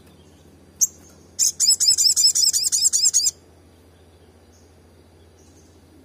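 Olive-backed sunbird calling: one sharp high chip, then a fast, loud run of about a dozen high repeated notes lasting about two seconds, followed by a few faint chirps.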